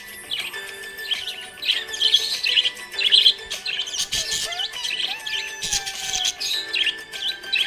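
Budgerigars chirping: a busy run of quick, high chirps and warbles, one after another.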